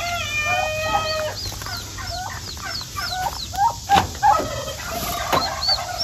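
Poultry calling: young birds peeping in short, high, falling chirps over and over, with clucking. A couple of knocks in the second half.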